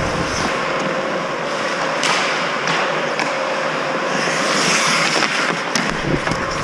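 Ice hockey play: skate blades scraping and carving on the ice as a steady hiss, with a few sharp clacks of sticks and puck.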